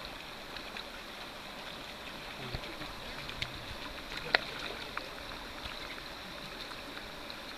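Steady rush of flowing river water, with scattered small clicks and one sharper click about four seconds in.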